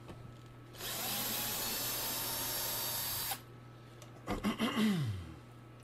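Cordless drill-driver running steadily for about two and a half seconds, then stopping abruptly, as it backs a screw out of a bass guitar's bridge.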